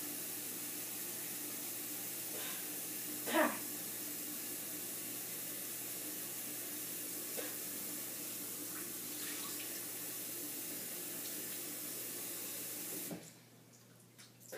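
Bathroom sink tap running steadily into the basin, shut off abruptly about thirteen seconds in. A short vocal sound from the person at the sink about three seconds in.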